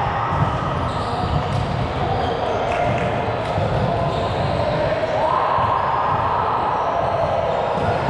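Ball-game sounds echoing in a gymnasium: a ball bouncing and being struck, with footsteps on the court.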